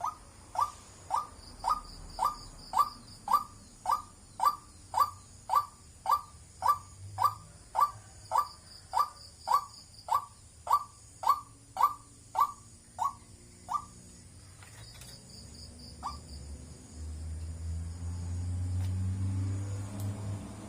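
White-breasted waterhen calling a long, even series of short rising 'wak' notes, about two a second, stopping about 14 seconds in with one last note a couple of seconds later. A low hum comes up near the end.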